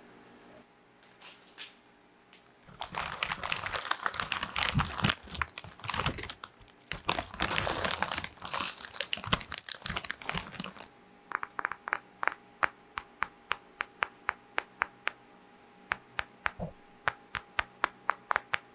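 A snack-chip bag crinkled and crumpled close to the microphone for several seconds, then quick, evenly spaced taps on a smartphone, about three a second, as ASMR trigger sounds.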